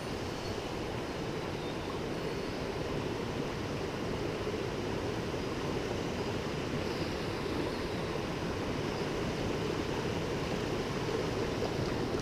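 Shallow mountain headwater stream running over rocks and small cascades: a steady rush of flowing water.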